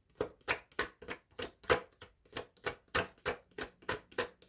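A tarot deck being shuffled by hand: an even run of short card slaps, about four a second.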